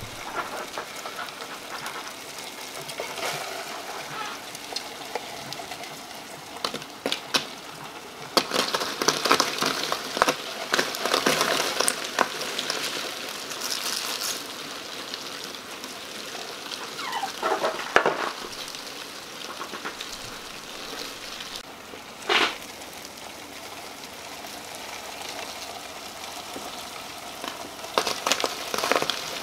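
Dozens of dubia roaches sliding and tumbling out of a clear plastic container onto a cardboard egg flat. It is a dry, scratchy rustle and pattering of legs and bodies on cardboard and plastic. It comes in spells of denser clatter, the busiest about ten seconds in, with a few sharper knocks of the container.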